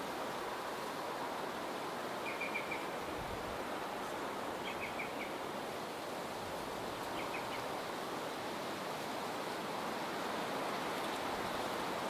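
Steady rush of strong wind. A small bird calls three times in quick runs of three or four short high notes, about two, four and a half and seven seconds in.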